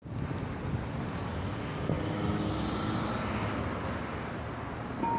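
Outdoor street ambience with traffic noise, and a vehicle passing about three seconds in.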